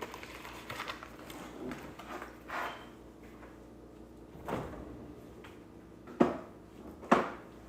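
A few sharp knocks and clunks of household objects being handled, like a drawer or cupboard being shut, with the loudest two about six and seven seconds in.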